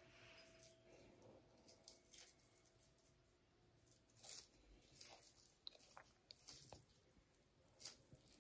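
Faint, scattered soft clicks and moist crackles of boiled taro corms being peeled by hand, the skins pulled and slipped off the soft flesh.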